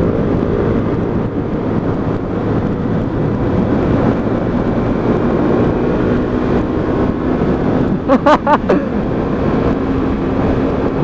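125cc motorcycle on the move, its engine running steadily under heavy wind rush on the microphone. About eight seconds in, a brief wavering pitched sound stands out for under a second.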